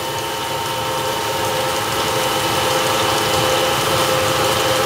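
Water-wheel drive train running steadily: a roller chain turning an old Dodge gearbox. It makes a continuous mechanical whir with several steady tones, growing slightly louder.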